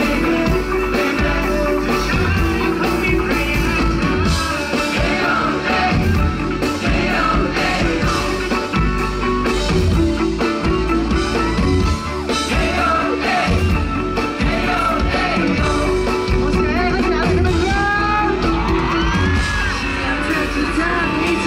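Live Thai pop song played by a band with drums, with male singers on handheld microphones and fans yelling and screaming along.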